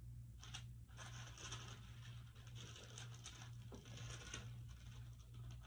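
Tissue paper rustling and crinkling in irregular bursts as it is folded back inside a gift box, over a steady low hum.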